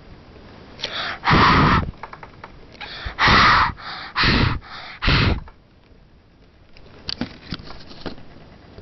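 A young girl's breath blown and huffed into the camera microphone from very close: four loud breathy bursts in the first five or so seconds, followed by a few faint handling clicks.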